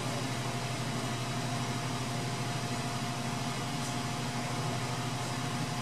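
Ender 3 Pro 3D printer's cooling fans running with a steady hum and a thin, steady whine above it while the nozzle heats.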